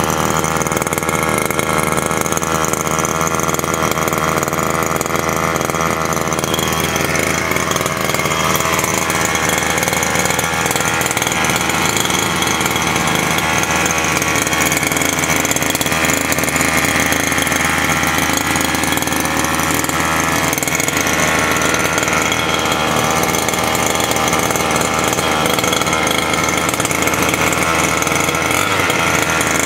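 The 30cc two-stroke petrol engine of a 1/5-scale RC buggy running steadily on 25:1 fuel mix, slightly rich on its standard tune.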